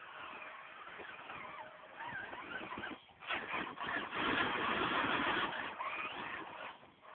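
Traxxas Summit RC rock crawler's electric motor and drivetrain whining, rising and falling in pitch with the throttle. From about three seconds in it turns louder and rougher as it works over the rocks, then drops away near the end.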